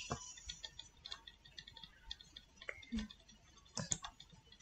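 Faint, irregular clicks of a computer mouse and keyboard, with a sharper pair of clicks just before four seconds in.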